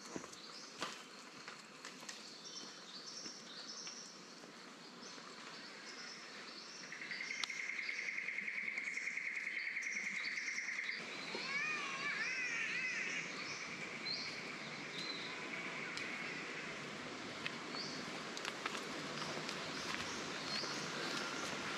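Rainforest birds calling, with many short high chirps. From about seven seconds in there is a rapid, steady trill lasting about four seconds, followed by a run of rising and falling whistles.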